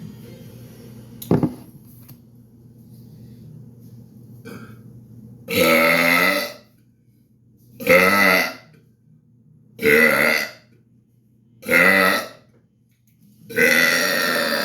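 Five loud burps from a man, one about every two seconds, each lasting about a second, the first and last the longest. A sharp click comes about a second in.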